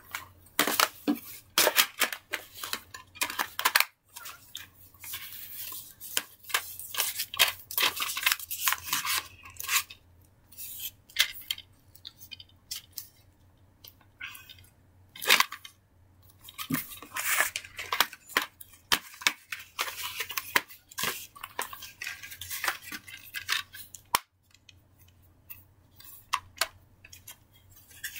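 Plastic DVD cases being handled close to the microphone: irregular clacks, taps and rustles, with a few short pauses.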